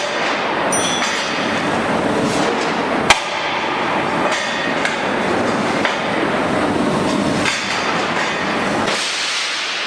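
Metalworking noise: a steady rough noise with scattered clicks, and one sharp metal knock about three seconds in.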